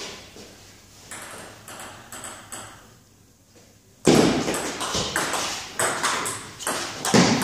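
Table tennis serve and rally: the ball clicks rapidly off the bats and the table, starting sharply about four seconds in after a few faint taps and a short lull.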